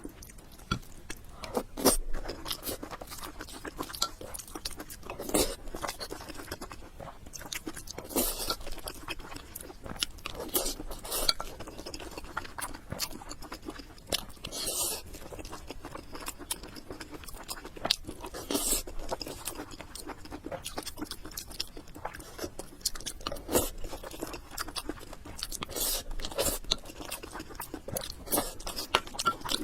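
Close-miked eating: irregular chewing and crunching of food, with occasional clinks of cutlery against dishes.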